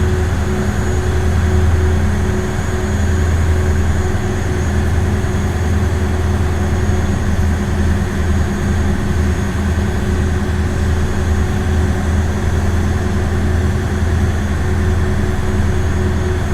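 Ferry boat motor running steadily: an even, deep drone with a steady low hum and a fainter higher tone over it, holding the same level throughout.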